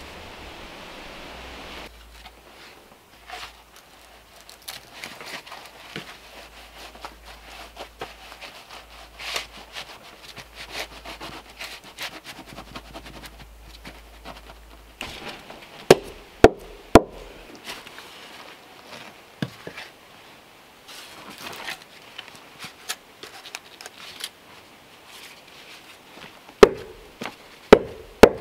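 Cordwood log rounds being set into wet mortar by gloved hands: soft scraping and rustling, broken by sharp wooden knocks as the logs are seated, three close together about halfway through and a quicker run near the end. A steady hiss fills the first two seconds.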